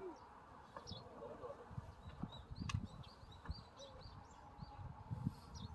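Faint outdoor background with a bird chirping in a run of short, high calls, over scattered low knocks and one sharp click a little under three seconds in.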